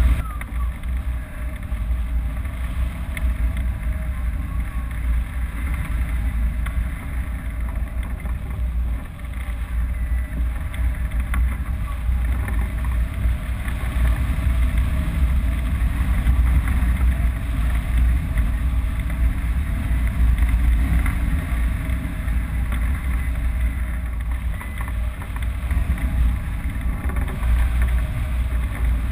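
Airflow buffeting the microphone of a camera mounted on a hang glider's wing in flight: a steady, low wind rumble that swells and eases slightly.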